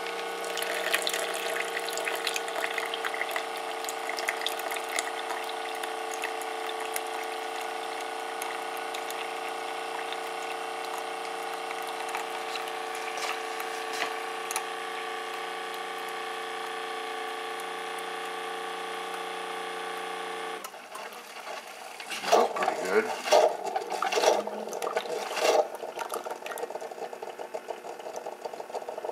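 Keurig single-cup coffee maker brewing into a mug: its pump runs with a steady hum as hot water pours through. The hum stops abruptly about two-thirds of the way in. A few seconds of loud, irregular sputtering follows as the last water and air are forced out at the end of the brew.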